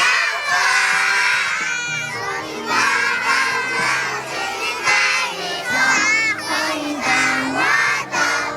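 A group of young children shouting and singing together, with music playing underneath.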